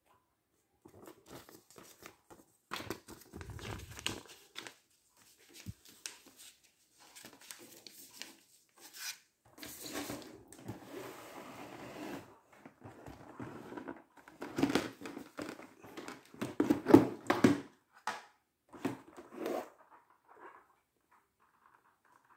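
Cardboard box and packing being handled: irregular rustling, crinkling and scraping with scattered knocks, loudest in a cluster past the middle.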